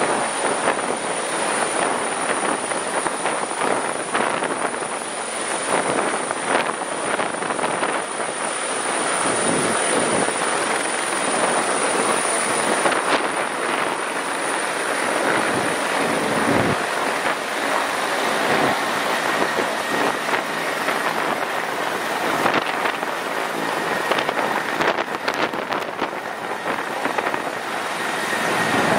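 Bell 412EPI twin-turbine helicopter at takeoff and low hover close by: a steady loud rush of rotor and engine noise with a thin high turbine whine above it.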